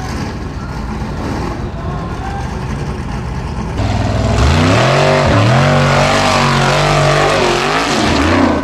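Formula Offroad buggy's engine revving hard on a steep hill climb. It is quieter and duller at first, then about four seconds in it jumps to loud, high revs that dip briefly, hold and fall away near the end.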